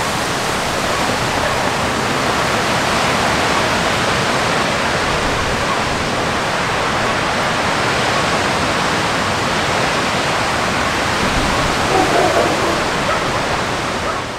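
Loud, steady rushing noise, even and unbroken, with no distinct strikes or rhythm.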